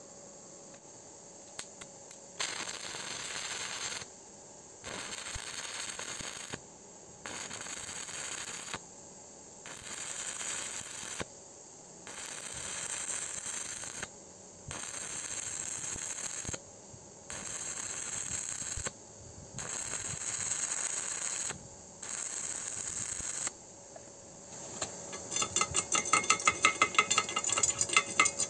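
Stick (arc) welding on thin square steel tube in short pulses: the arc crackles and hisses for about one and a half to two seconds at a time, nine times over, struck and broken again and again so the thin wall does not burn through. Near the end, rapid metallic tapping of a chipping hammer knocking slag off the fresh weld.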